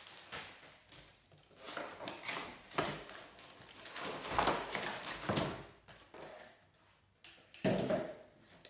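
Food packaging and a paper-lined cardboard box being handled: irregular rustles and light knocks as items are moved about in the box, with a louder knock near the end.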